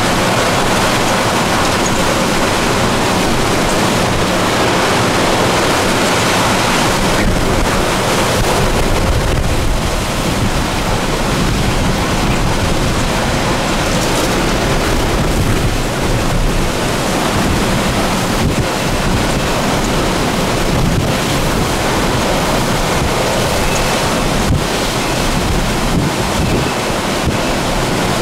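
Hurricane-force winds blowing hard and without letup, buffeting the microphone in a loud, steady rush.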